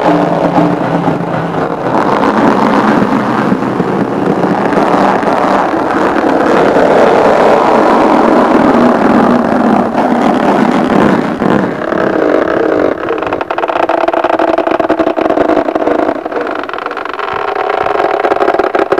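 A rubber ball held to the mouth and worked with both hands right against the microphone makes a loud, continuous rubbing and buzzing noise. A steadier pitched buzz comes in about 13 seconds in and fades near the end.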